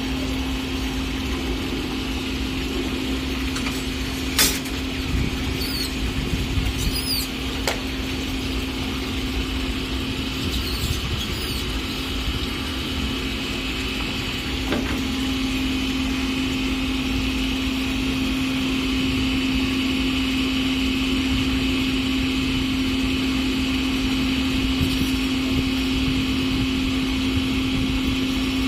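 A machine's steady hum at one low pitch, growing a little louder about halfway through. A few sharp clicks and brief high chirps sound over it.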